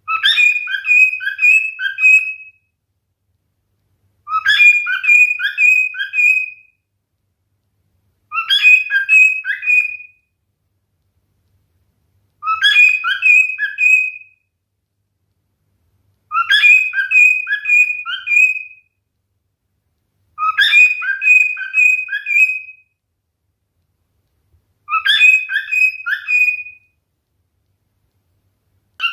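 A male cockatiel whistling the same short song phrase seven times, one about every four seconds, with silence between. Each phrase is a quick run of clear whistled notes.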